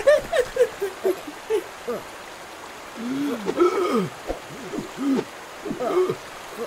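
Wordless cartoon-character vocal sounds: a quick run of short, pitched, swooping calls, then a few longer rising-and-falling hoot-like cries.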